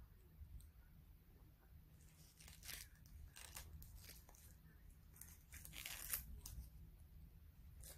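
Banana-leaf lining being pulled and torn off a baked bibingka: a run of short crackling rustles, beginning about two seconds in.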